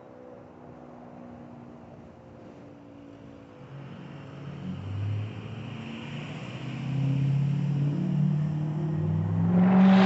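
Federal Model 3B mechanical fire siren winding down, then spinning up again with a low, rising tone that gets steadily louder, swelling sharply near the end.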